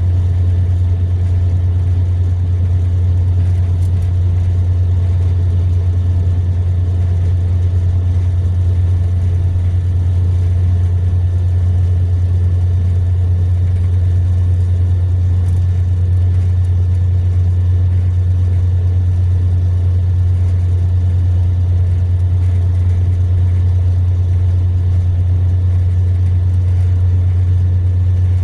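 Mercedes-Benz long-distance coach's diesel engine and road noise as the bus cruises steadily along a motorway: a constant low drone with a wide even rumble, holding the same pitch and level throughout.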